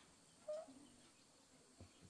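Near silence outdoors, broken about half a second in by one brief, faint bird call, and by a faint knock near the end.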